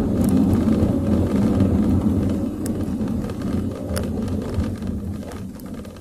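Car road and tyre noise heard inside the cabin from the rear seat, growing quieter as the car slows under braking, with a few faint clicks. This is a brake test after the rear brake shoes and drums were cleaned and adjusted to cure a knocking noise when braking.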